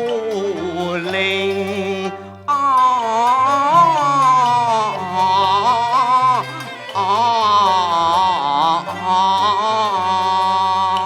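Cantonese opera singing: one syllable drawn out into a long, wavering melismatic line with vibrato, over the accompaniment of a Chinese opera instrumental ensemble with steady low bass notes.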